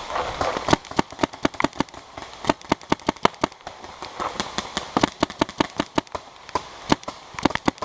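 Paintball markers firing: many sharp shots at irregular spacing, often several a second in quick strings, the densest run near the end.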